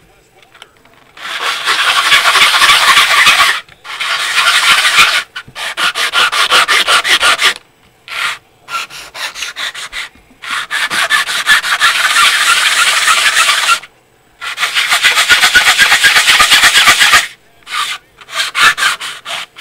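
Plastic model wall pieces rubbed hard back and forth on a sheet of sandpaper laid flat, grinding material off. The sanding comes in several spells of rapid strokes with short pauses between them.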